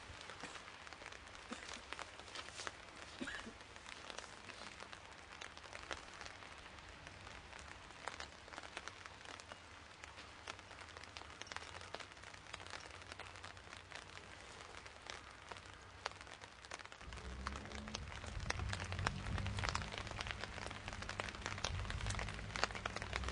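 Steady rain falling, with many close raindrop ticks. About three-quarters of the way through, a low rumble comes in and grows louder.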